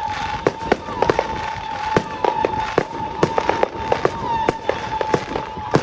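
Fireworks and firecrackers going off in rapid, irregular sharp bangs, several a second, over a steady high tone.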